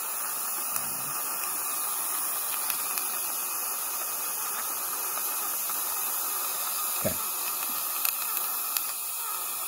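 Steady hissing suction of a Nola dry-field system drawing air and saliva from the patient's mouth, with a few faint clicks from metal dental instruments and a brief low thump about seven seconds in.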